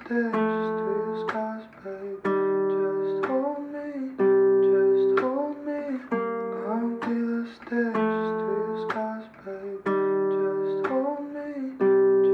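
Song intro on acoustic guitar: plucked and strummed chords in a slow repeating pattern, a new chord about once a second.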